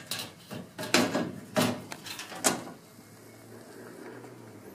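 Sheet-metal front door panel of a Rheem furnace being fitted back on and closed: several knocks and rattles in the first two and a half seconds, then a faint steady low hum.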